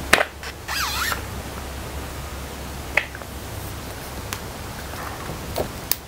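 Handling noise as a pole hedge trimmer attachment is lifted out of its cardboard box: a sharp click at the start, a brief rustle of packaging about a second in, then a few light clicks and knocks of the tool's plastic and metal parts.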